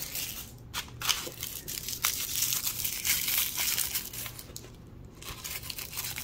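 Hands crinkling and tearing open hot-pink toy wrapping, with scattered light clicks; the rustling eases off shortly before the end.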